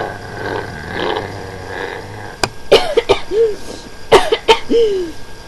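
A person making mouth sound effects: soft breathy hisses, then about halfway through a run of sharp clicks, each followed by short squeaky vocal chirps that rise and fall in pitch.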